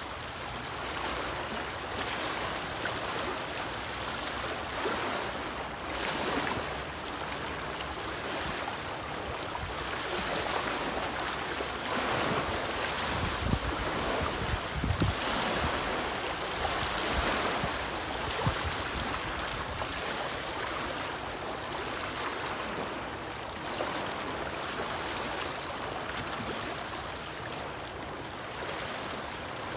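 Choppy lake waves lapping and splashing steadily against a rocky shoreline, with gusts of wind buffeting the microphone for several seconds around the middle.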